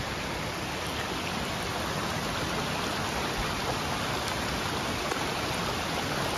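Steady rush of a rain-swollen, muddy creek in flood, its water running high over rocks and across the trail.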